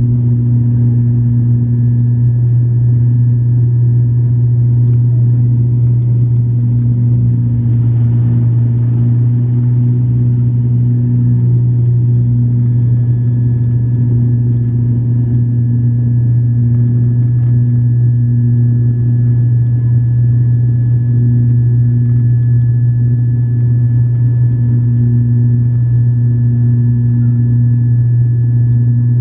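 Airliner cabin noise on the approach to landing: the engines' steady, loud low drone, with a few faint steady high tones above it.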